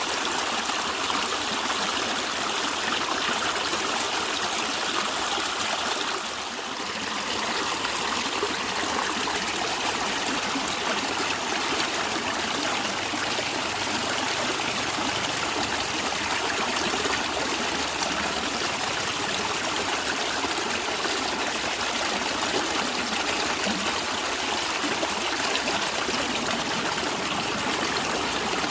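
A natural stream flowing and gurgling steadily, dipping briefly in level about six seconds in.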